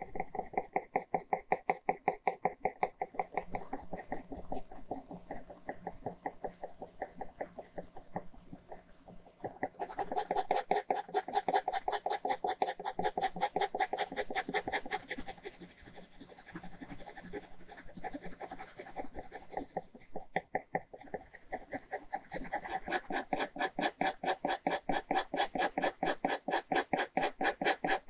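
Ballpoint pen scratching on paper in quick back-and-forth hatching strokes, about four a second, with a short break about twenty seconds in.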